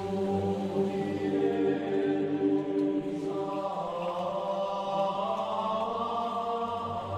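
Background music of slow, sustained choir-like chanting, its held chord shifting about three seconds in.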